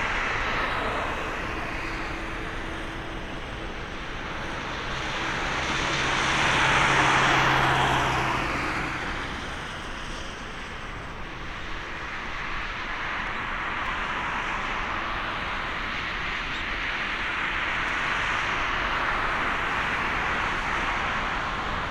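Airbus A350-900's Rolls-Royce Trent XWB jet engines roaring at takeoff power. The roar swells to a peak about seven seconds in, with a high whine that falls in pitch as the aircraft passes, then settles into a steady roar.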